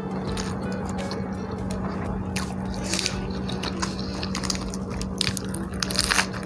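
Close-miked chewing and biting of a mouthful of martabak telur and rice, with wet mouth sounds and a few sharper bites about three seconds in and near the end.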